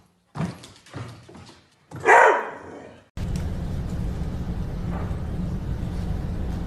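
A dog barks, one loud bark about two seconds in after a few softer sounds. A steady low hum then starts abruptly and continues.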